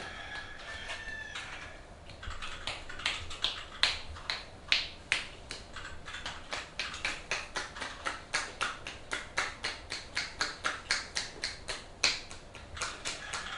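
Percussion massage: palms pressed together strike a man's arm in a steady run of sharp slaps, starting about two seconds in and speeding up to about three or four a second.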